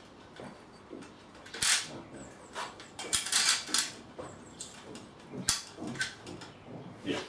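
Handling noise from a flexible plastic dust-extraction hose and its support pole being adjusted: a string of irregular knocks, clicks and rattles, busiest about three to four seconds in.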